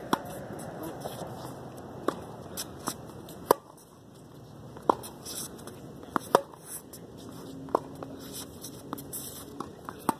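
Tennis ball struck by rackets and bouncing on a hard court during a rally: a string of sharp, irregular pops.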